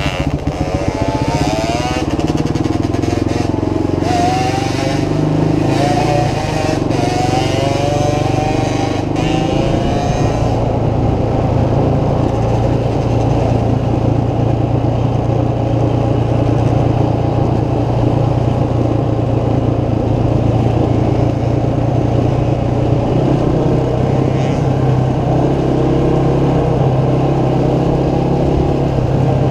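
Motorcycle engine running, its pitch wavering up and down repeatedly for the first ten seconds or so, then holding steady.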